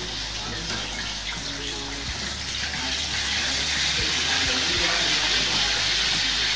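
Pieces of rat meat deep-frying in a wok of hot oil, a dense steady sizzle that grows louder about three seconds in as more pieces go into the oil.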